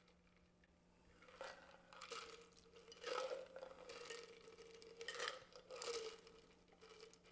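A shaken cocktail strained from a metal cocktail shaker into stemmed glasses: faint pouring and dribbling in several short spurts, starting about a second in.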